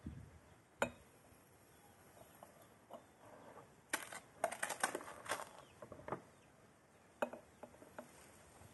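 Light clinks and taps of large glass jars being filled by hand with quince and pomegranate pieces: a sharp click about a second in, a quick run of taps around four to five seconds, and another click near seven seconds.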